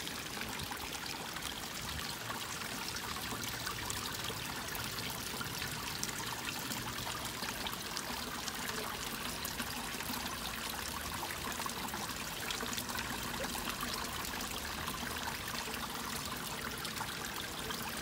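Small waterfall splashing over rocks into a pool, a steady rush of water heard close up.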